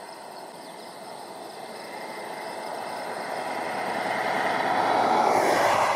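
A road vehicle approaching, the rush of its tyres and engine swelling steadily louder.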